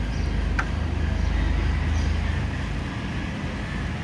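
Steady low outdoor rumble with a faint hiss above it, and one brief high sound about half a second in.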